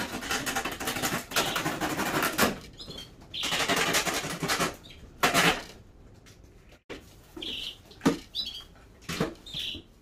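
Plastic packing straps being cut and pulled off a cardboard box, rustling and scraping against the cardboard in a few long stretches, then several short sharp clicks and snaps as the box flaps are worked open.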